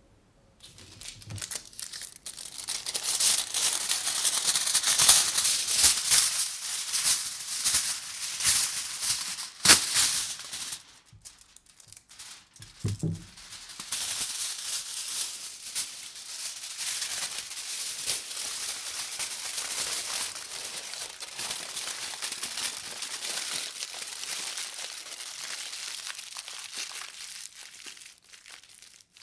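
Aluminium foil being crumpled and crinkled, a dense, loud crackling with a sharp snap about ten seconds in. After a brief pause and a soft thump, the crinkling goes on steadier and quieter.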